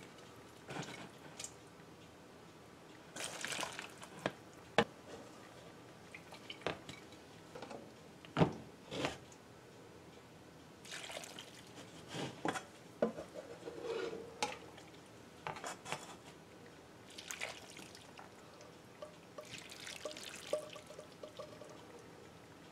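Chicken stock being spooned from a pot through a fine-mesh metal strainer into a plastic container. A metal spoon clinks against the pot now and then, with short pours and splashes of liquid and dripping in between.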